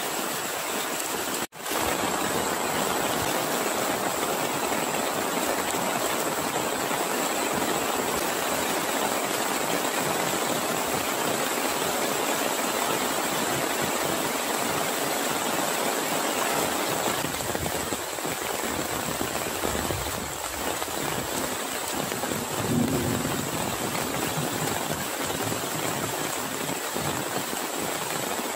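Heavy rain pouring steadily onto a pond and grass: a dense, even hiss. It cuts out for a moment about a second and a half in, then resumes.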